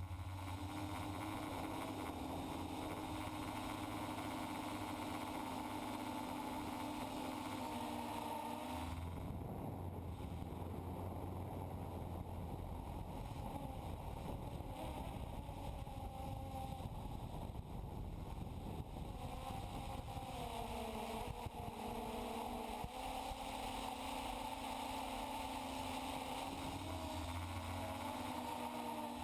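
FPV quadcopter's electric motors and propellers whining, heard from the GoPro on board, over wind noise on the microphone. The whine holds a steady pitch, drops away about nine seconds in, and returns after about twenty seconds, rising and falling as the throttle changes.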